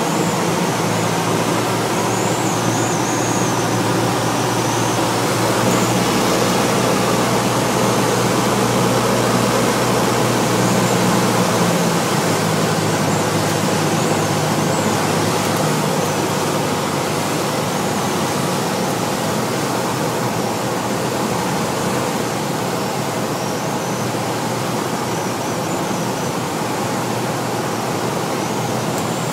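Cessna 172's piston engine and propeller running steadily, heard inside the cabin under a loud rush of wind noise. The low engine tones shift about twelve seconds in.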